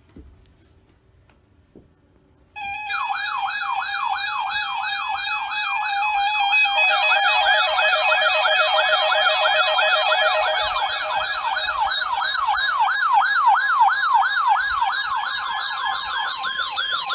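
Weather radio alert sounding: a loud electronic siren-like warble, several tones sweeping rapidly up and down together, starting suddenly a couple of seconds in and ending with a short steady tone. It signals an incoming tornado warning.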